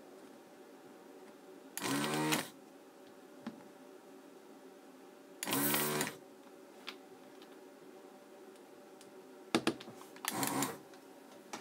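Vacuum desoldering gun's pump buzzing in three short bursts, each about half a second, sucking molten solder off the pins of a small circuit board.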